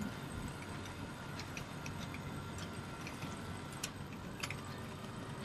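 Mainsail being hoisted on a sailing yacht: scattered sharp clicks and ticks from the halyard winch and rigging over a steady low hum, with a faint thin whine that stops about four seconds in.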